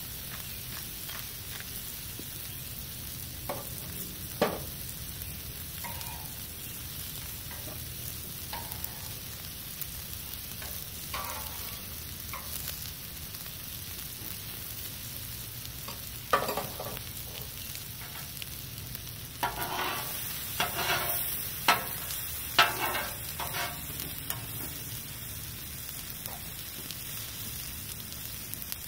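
Peppers and onions sizzling steadily on a Blackstone flat-top griddle, with metal tongs clicking and scraping against the steel cooktop in a run of sharp knocks past the middle.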